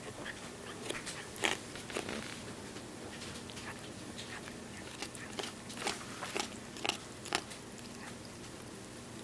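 A pet chewing food, with scattered sharp, gritty crunches, several close together past the middle: the gritty noise he makes when he eats.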